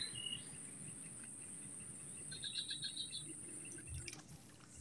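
Faint swamp ambience: a steady faint high hiss, and about two and a half seconds in a brief rapid string of high chirps.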